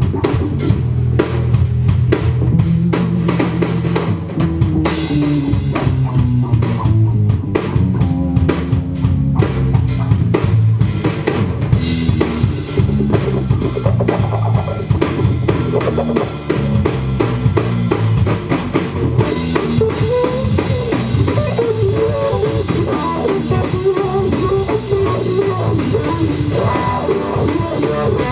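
Instrumental funk-rock band music: a drum kit keeps a steady beat under guitar and a moving bass line, with a higher melodic line coming in past the middle.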